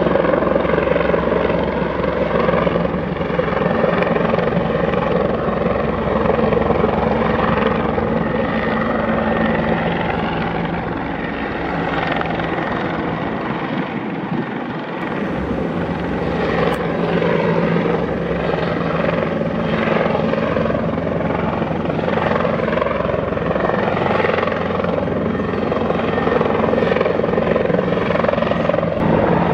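Bell 412 twin-turboshaft, four-blade helicopter flying past, its rotor and turbine sound steady and loud, with a brief dip in level about halfway through.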